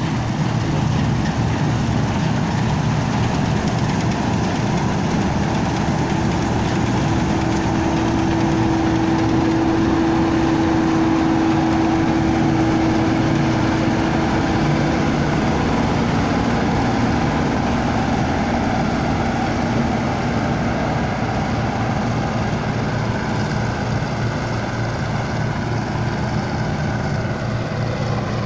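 Bizon Z056 combine harvester running steadily under load while cutting grain, its diesel engine and threshing machinery making a dense, continuous mechanical noise. A steady whine joins for several seconds near the middle.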